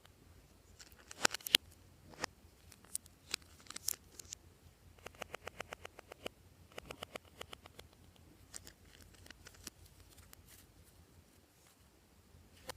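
Glossy slime being squished and stretched by hand, giving off sticky clicks and small pops, with a quick run of little pops about five seconds in.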